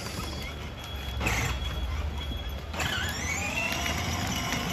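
Electric motor of a child's ride-on toy motorcycle whining up in pitch as it pulls away, then holding steady, over a low hum.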